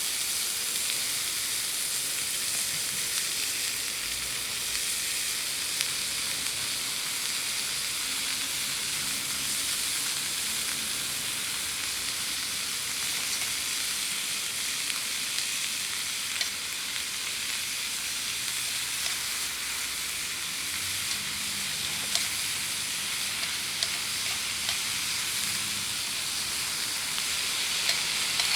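Vegetables sizzling steadily as they stir-fry in a pan, with a few sharp clicks scattered through.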